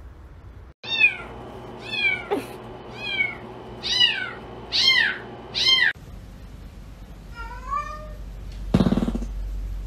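A kitten meowing over and over: six short, high meows that fall in pitch, about one a second. Then another cat gives two softer meows and a louder, lower meow near the end.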